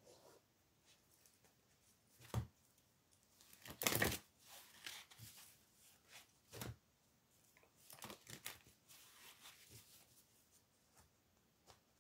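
Tarot cards being handled on a cloth-covered table: picked up, gathered and shuffled. The cards rustle and knock softly on and off, with a louder rustle about four seconds in.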